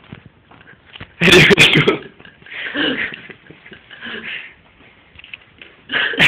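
A man's non-speech vocal sounds: a loud, harsh burst about a second in, followed by softer voiced sounds, and another harsh burst near the end.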